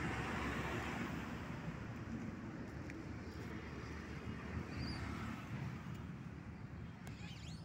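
A steady rushing rumble like passing road traffic, slowly fading away.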